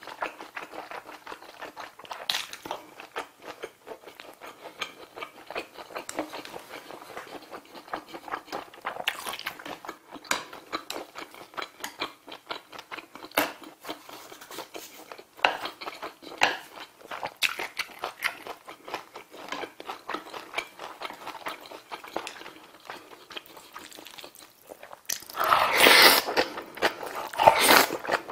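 Close-miked chewing of braised pork trotter and kimchi, with many small wet mouth clicks and smacks. Near the end, two loud slurps of black bean noodles being sucked into the mouth.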